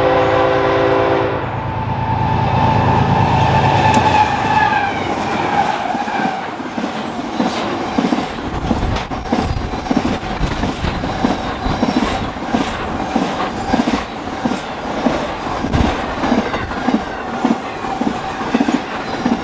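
Freight locomotive horn chord cutting off about a second in, then the passing locomotives' sound falling in pitch. Then a single-stack intermodal train of containers and trailers rolls past at speed, its wheels clicking steadily over the rail joints.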